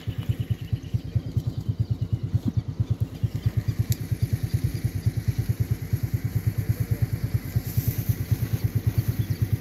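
A small engine chugging steadily with a fast, even low beat.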